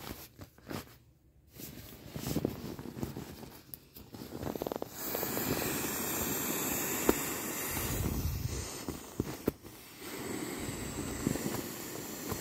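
Air hissing out through the open tail valve of a vinyl inflatable as it is pressed down, with the vinyl rustling and rubbing. The first few seconds are mostly vinyl rustling; a steady hiss starts about five seconds in, drops briefly near ten seconds, then resumes.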